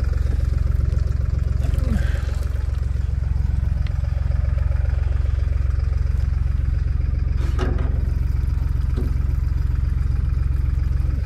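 Engine running at a steady speed, likely powering the crop sprayer while its nozzles are opened, with a brief clatter about seven and a half seconds in.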